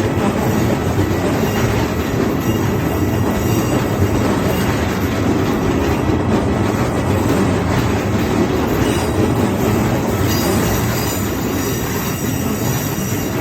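Electric train running past close by at a level crossing, a steady loud rumble of wheels on the rails, easing slightly near the end.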